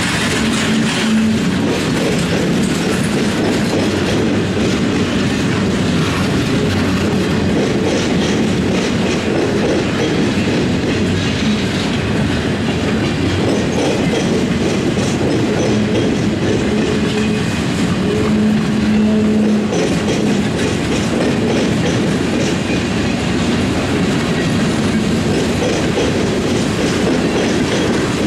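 Freight train cars rolling past, their wheels clattering steadily over the track, with a low steady tone sounding off and on.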